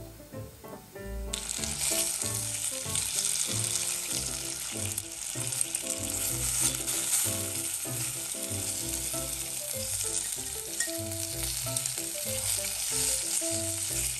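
Pork spare ribs sizzling in hot sesame oil in a clay donabe rice pot as they are turned with tongs; the sizzle starts suddenly about a second in. Soft background music plays underneath.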